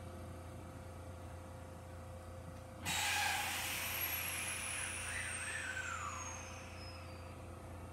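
Kintetsu 5820 series electric train's air brakes releasing just before it pulls away: a sudden loud hiss of air about three seconds in, with a falling whistle, that fades over the next few seconds. A steady hum from the standing train underlies it.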